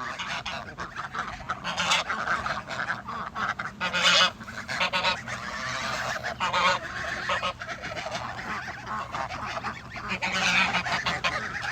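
A flock of domestic geese and ducks calling all at once, a constant jumble of overlapping honks and squawks, loudest about four seconds in and again near the end.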